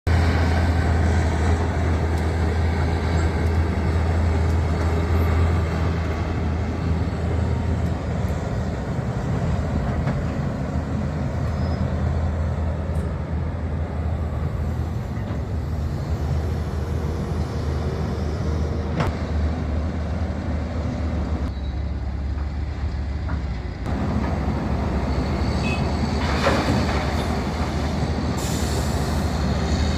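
Heavy diesel earthmoving machine running with a steady low engine drone, with a few sharp clanks and a brief easing of the higher noise a little past two-thirds through.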